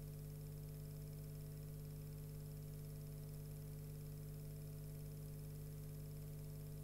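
Steady low electrical hum with a faint even hiss, unchanging throughout; no sound of the fire itself is heard.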